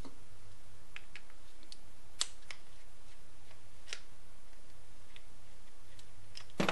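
Scattered light metallic clicks and taps as a Husqvarna 235R brushcutter's carburetor is handled on the bench, about a dozen over a few seconds, the sharpest about two seconds in, over a steady low hum.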